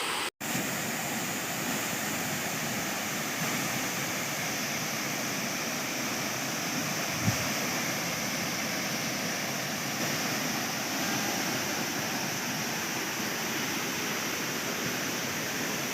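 Waterfall: a steady rush of falling water, which cuts out for an instant about half a second in.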